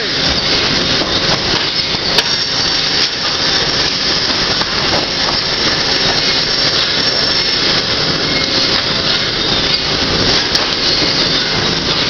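Sawmill machinery running while redwood is sawn into lumber: saws cutting and boards riding over powered roller conveyors make a loud, steady din, with a few sharp clicks and knocks.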